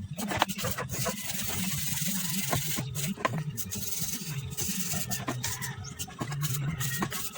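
Irregular scraping and scrubbing strokes on Suzuki F6A engine parts being cleaned by hand, with a low wavering hum underneath.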